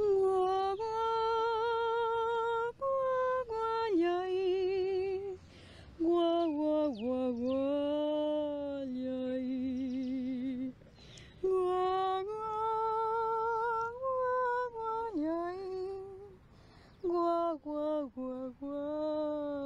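A soprano singing unaccompanied in Quechua, holding long notes with a clear vibrato, in phrases separated by short pauses.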